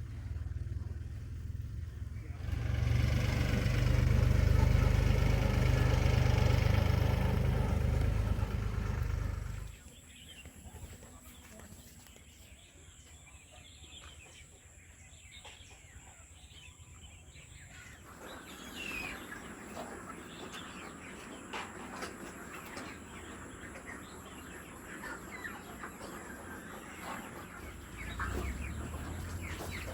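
Desi chickens clucking and chirping in the last third. Earlier there are several seconds of loud low rumble with a hiss, which cuts off suddenly.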